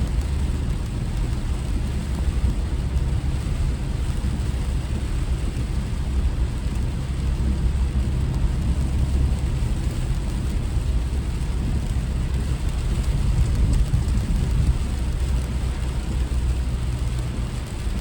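Steady low rumble of a car being driven: engine and road noise, even throughout with no sudden events.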